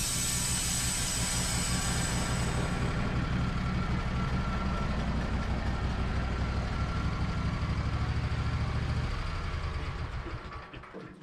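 Wood-Mizer LT15 band sawmill's engine running steadily under power, with a high hiss in the first couple of seconds. About nine seconds in the engine note drops and the sound dies away as the mill shuts down.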